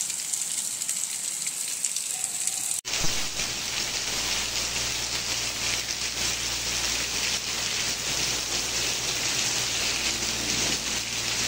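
Heavy rain pouring onto the ground, a steady hiss of falling water. About three seconds in the recording cuts abruptly to another downpour with a fuller, deeper sound.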